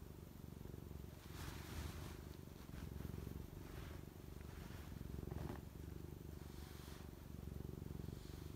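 Domestic cat purring steadily, very close, the rumble swelling and easing with each breath, with a few brief soft rustles over it.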